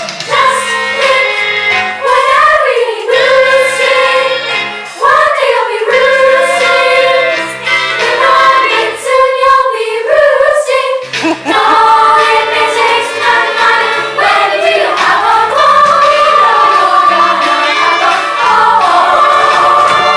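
Young cast singing a musical-theatre finale number in chorus over instrumental accompaniment, holding a long note near the end.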